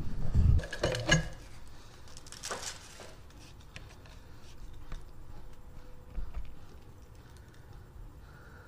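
Knocks and clatter of handling in the first seconds, then faint small metallic clicks and scrapes as the fitting of a braided steel turbo oil line is threaded by hand into a Nissan CA18DET engine block.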